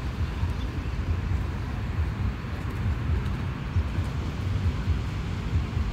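Wind buffeting the phone's microphone: an irregular, fluttering low rumble.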